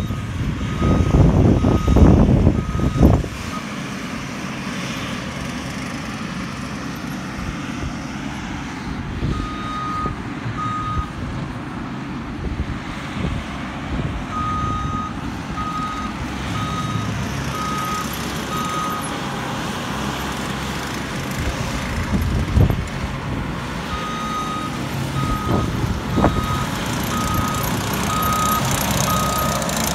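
Reverse alarm of a compact track loader beeping in runs of about one and a half beeps a second, stopping and starting as the machine backs up, over the steady running of its engine. A loud low rumble fills the first three seconds.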